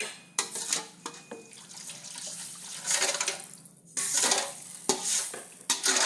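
Water splashing and sloshing in a cooking pan, with clatter of a utensil or pan, in several irregular bursts that start suddenly.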